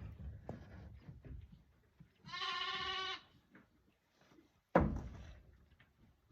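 A sheep bleats once, a call of about a second starting a little over two seconds in. A sudden thump near the end is the loudest sound, with scattered light knocks and rustling around it.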